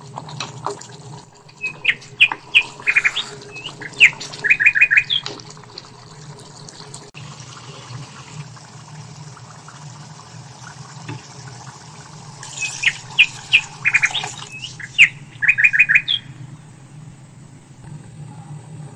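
A bird singing a short phrase of sharp chirps ending in a quick trill. The phrase is heard twice, a couple of seconds in and again about twelve seconds in, over a steady low hum.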